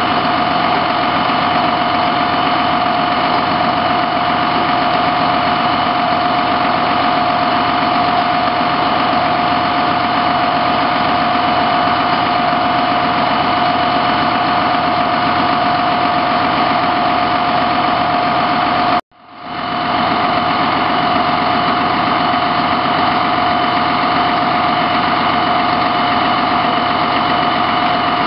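A parked fire engine's diesel engine running steadily, with a steady whine over it. The sound drops out for a moment about two-thirds of the way through and fades back in.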